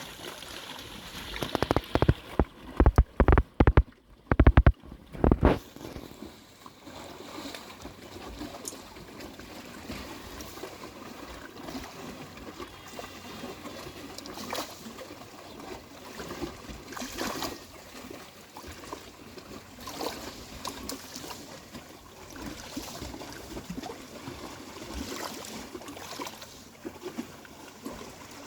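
Small sea waves lapping and washing on the shore, a steady wash of water with soft surges every few seconds. About two seconds in comes a run of loud thumps lasting several seconds, the loudest sound here.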